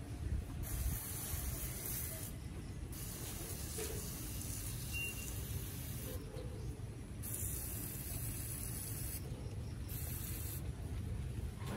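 Water spraying from the nozzle of a long-handled watering wand onto potted plants: a hiss that starts and stops four times in short bursts, over a steady low rumble.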